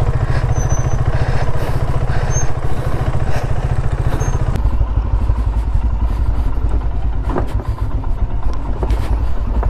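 Motorcycle engine running at low speed while riding down a rocky dirt trail, with a few knocks from the bike over the stones. A little under halfway through, the engine note switches abruptly to a deeper one.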